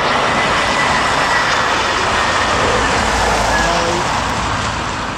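Airbus A320-214's CFM56 turbofans at low approach power as the jet flares and touches down: a steady jet rush with a faint high fan whine, easing off over the last second or so.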